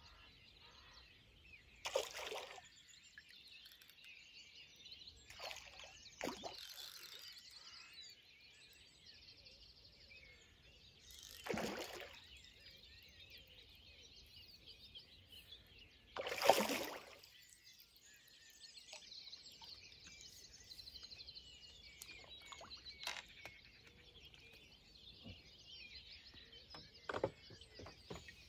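Small birds singing and chirping steadily in the background, faint, with a handful of brief louder noises breaking in, the loudest a little past halfway.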